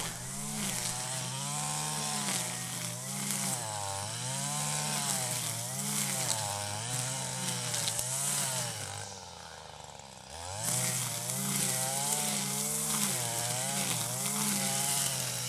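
Small engine running, its speed rising and falling in a steady rhythm about once a second. It eases off briefly about two-thirds of the way through, then picks up again.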